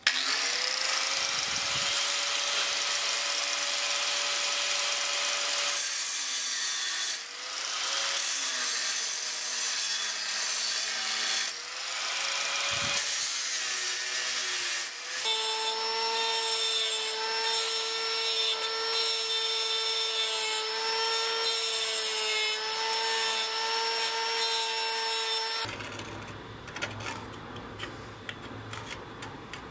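Angle grinder spinning up and cutting through sheet metal, the cutting noise dipping briefly twice and the motor whine holding steady in the later part, then the grinder stops about 26 seconds in.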